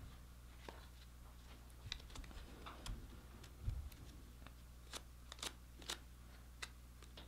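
Faint crinkling and clicking of folded paper banknotes being handled and pressed into a leather money clip wallet. A soft low bump comes a little before the middle, and a run of sharper crackles follows in the second half.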